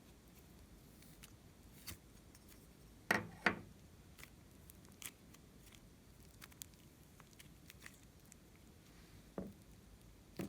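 Scattered small clicks and taps of objects being handled, with two louder knocks in quick succession about three seconds in and another thump near the end.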